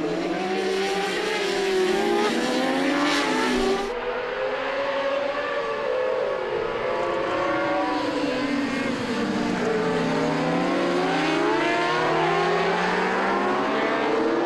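Several superbike racing motorcycle engines at high revs passing on track, their pitch rising and falling as they go by and change gear.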